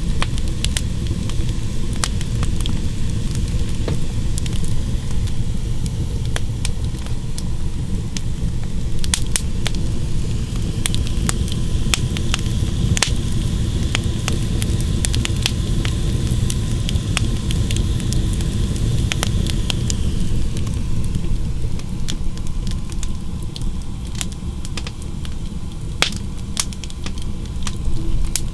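Wood fire in a clay fireplace crackling, with irregular sharp pops over a steady low rumble.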